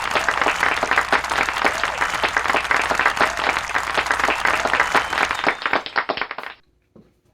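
Applause: many hands clapping densely and evenly, cutting off abruptly about six and a half seconds in.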